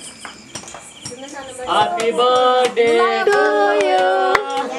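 Singing, with held notes that step from one pitch to the next, coming in about two seconds in after a quieter stretch with a few faint clicks.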